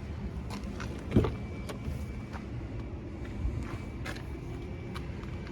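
A few light clicks and knocks, one louder knock about a second in, over a steady low rumble.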